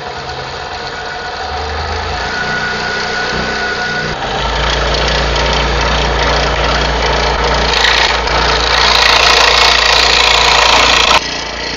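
Ryobi variable-speed scroll saw running, its motor and reciprocating blade humming and stepping up in speed over the first few seconds. About eight seconds in, the blade cuts into a thin board, adding a loud sawing noise that stops abruptly near the end.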